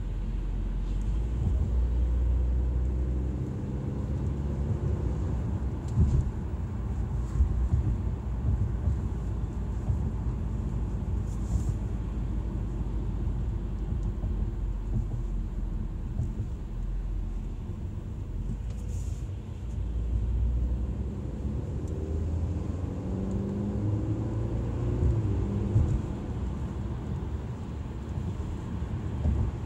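Audi A4 driving and accelerating, with a low rumble and the engine note rising twice, near the start and again about two-thirds through. The car is being recorded for a noise that appears under acceleration.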